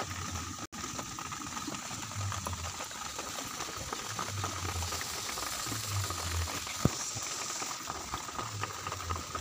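Mango chutney simmering in water in a metal kadai, a steady bubbling hiss, with one sharp click a little before seven seconds in.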